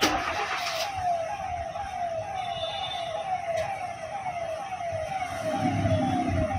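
A repeating electronic warning tone, a short beep falling in pitch about three times a second, steady throughout. A brief knock and rustle comes right at the start, and a low rumble near the end.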